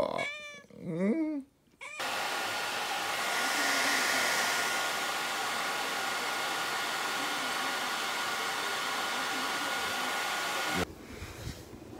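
Electric hair dryer switched on about two seconds in, running with a steady rushing blow and a constant high whine, then cutting off suddenly near the end; it is drying a freshly bathed cat.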